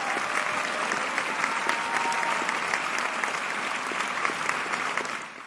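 Audience applauding: a dense patter of many hands clapping that holds steady, then dies away quickly at the very end.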